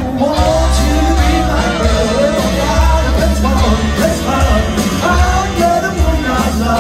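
Live rock and roll band playing: a lead singer over electric guitars, bass, drums and saxophone, with a strong pulsing bass.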